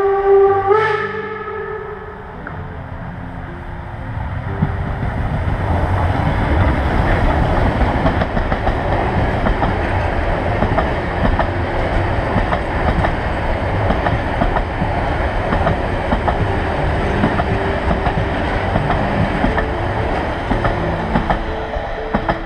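A narrow-gauge steam train's whistle sounds and cuts off about a second in. The train then runs close past, its wheels and coaches clattering loudly over a steady rumble until the end.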